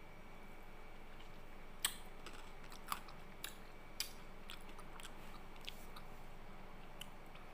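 A handful of light, sharp plastic clicks and taps: the purple plastic cup and spoon of a Cadbury Dairy Milk Lickables being handled. The clicks are irregular, the first about two seconds in the loudest, over a faint steady hiss.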